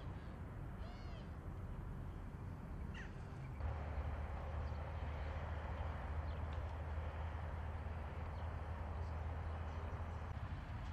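Outdoor field ambience: a few short rising-and-falling animal calls in the first three seconds. After a cut about three and a half seconds in, a louder steady hiss over a low rumble takes over, with a few faint high chirps.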